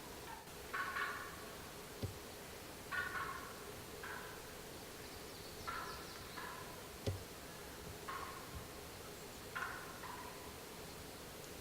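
Wild turkey gobbling, a faint call repeated about every two to three seconds, with two sharp clicks, one about two seconds in and one about seven seconds in.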